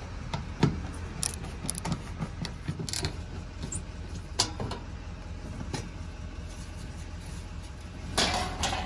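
Cordless drill-driver backing rusted screws out of an RV refrigerator's outside vent cover, with scattered clicks and knocks of the bit and screws. Near the end comes a louder scraping rustle as the plastic vent panel comes off.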